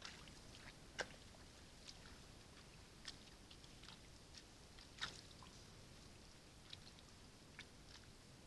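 Near silence on a trail camera's microphone: a faint steady hiss with scattered, irregular sharp clicks and ticks, the loudest about a second in and again about five seconds in.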